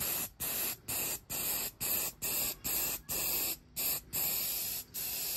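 Aerosol can of gloss clear lacquer spraying in short hissing bursts, about two a second, as a clear coat is laid down.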